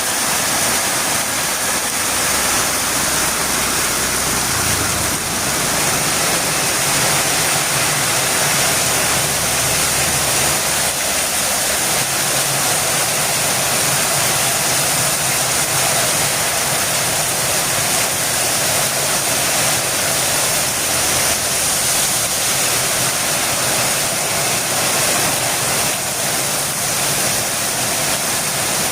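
Heavy rain falling in a steady downpour, a dense even hiss. A faint low hum sits underneath for roughly the first ten seconds.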